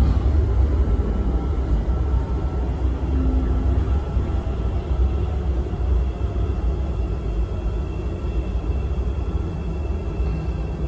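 São Paulo Metro Series 400 train running through a tunnel, heard from inside the car: a steady low rumble with faint steady high tones above it.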